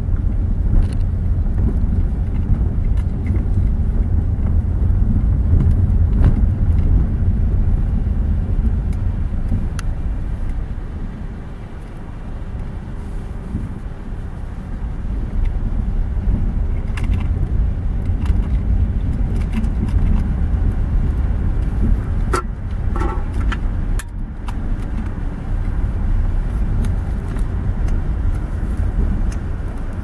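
Car driving slowly, heard from inside the cabin: a steady low engine and road rumble that eases briefly around the middle, with a few clicks and a short rattle about three-quarters of the way through.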